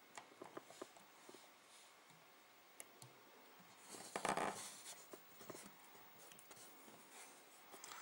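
Faint clicks and scratchy rustling of fingers untwisting the twisted pairs of a CAT5 cable's thin insulated wires, with a louder brushing rustle about four seconds in.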